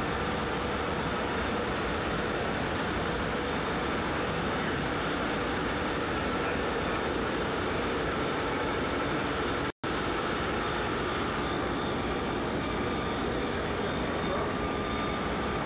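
Steady machine-room hum and background noise, even in level with faint constant tones running through it. The sound cuts out completely for an instant about ten seconds in.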